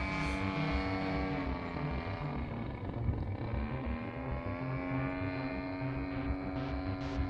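DLE 35RA two-stroke gasoline engine of an RC airplane running in flight with its propeller; its pitch drops about two seconds in, then climbs back up and holds steady over the second half.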